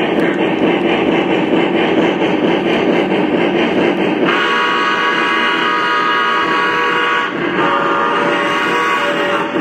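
O scale model of a Santa Fe 4-8-4 Northern steam locomotive running, its sound system giving a rhythmic chuff, then blowing its steam whistle: one long blast about four seconds in and a second, shorter blast after a brief break near the end.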